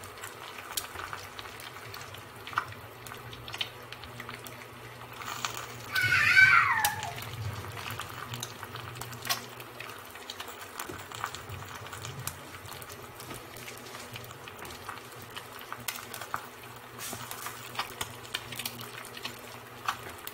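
Egg frying in oil in a nonstick pan: scattered crackles and pops of sizzling oil over a low steady hum. About six seconds in, a loud, brief sound falling in pitch cuts across the sizzle.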